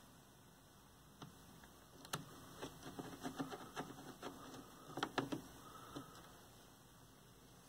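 Scattered light clicks and small knocks of hands handling wiring and a circuit board inside a TV chassis, busiest from about two to five seconds in, with the sharpest clicks around five seconds.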